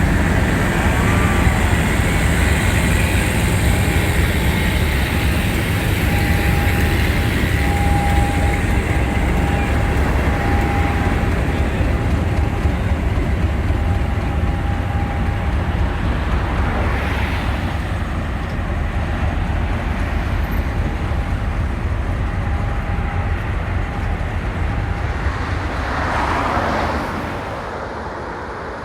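Heavy diesel locomotive engine running loud with a steady deep rumble, a thin held tone sounding for several seconds in the middle. The sound drops away near the end.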